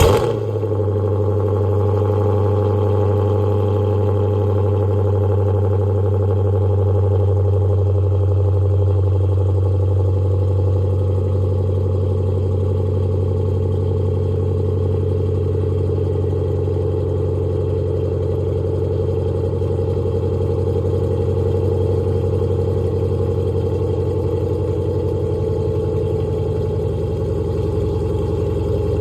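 Dodge Hemi V8 with catless mid pipes idling steadily just after being started, the start-up flare settling within the first second.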